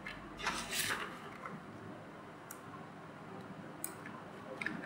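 A computer mouse clicking a few times, soft single clicks over quiet room tone, with a faint rustle about half a second in.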